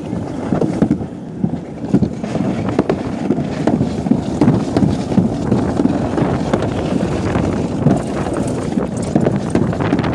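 An alpine slide sled running fast down its chute: a continuous rough rumble with many small rattling knocks, and wind buffeting the microphone.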